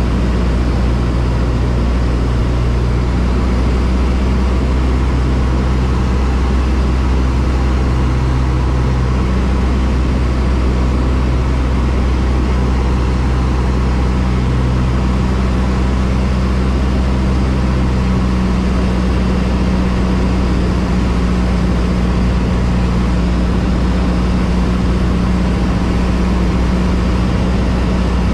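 Cessna 152's four-cylinder Lycoming engine and propeller running steadily at a constant drone, the tone shifting slightly about two-thirds of the way through.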